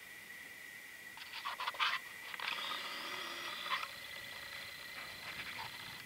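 Clicks and scrapes of a camcorder being handled, loudest just before two seconds in, then a whirring motor sound of about a second and a half as the lens zooms out. A faint steady high-pitched whine runs underneath.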